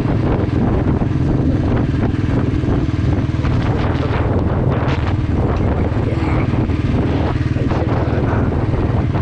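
Motorcycle engine running steadily under way, a constant low drone that does not rise or fall.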